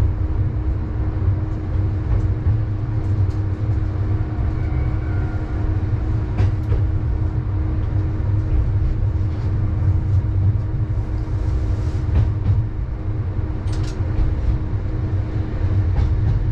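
Diesel railcar running along the track, heard from the driver's cab: a steady low rumble of engine and wheels with a held hum, and scattered clicks from the rails.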